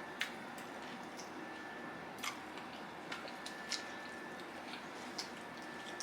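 Quiet eating sounds: scattered small clicks and wet smacks, about a dozen in six seconds, the sort made by chewing and chopsticks at a sushi meal, over faint room noise with a thin steady high tone.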